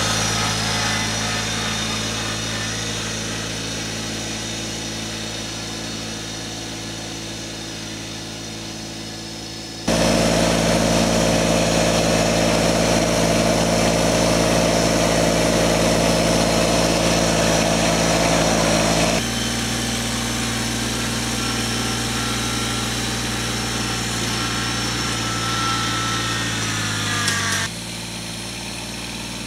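Kubota BX2360 compact tractor's small three-cylinder diesel engine running steadily. It fades as the tractor moves off, is much louder and closer for several seconds from about ten seconds in, then drops back to a softer steady run.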